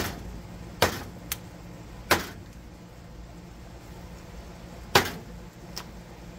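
Cleaver chopping through grilled jerk turkey onto a wooden cutting board. There are sharp loud chops at the start, at about one second, at about two seconds and at about five seconds, with two lighter taps in between.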